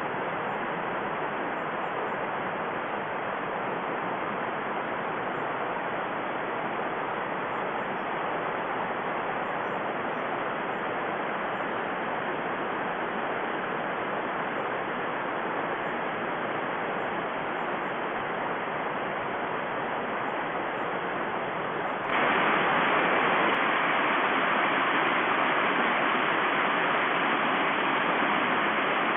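Steady rush of water from a small rocky woodland stream, an even hiss that gets louder about 22 seconds in.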